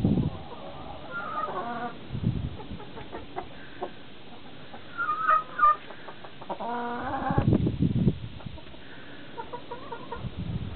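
Flock of domestic chickens clucking and calling, with short sharp calls and a couple of longer drawn-out calls about a second in and about seven seconds in. Low rumbling bumps close to the microphone, near the start, about two seconds in and about seven and a half seconds in.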